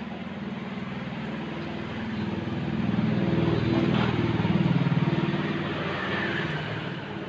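Motorcycle engine running, growing louder to a peak about three to five seconds in and then easing off, as a motorbike passing by would.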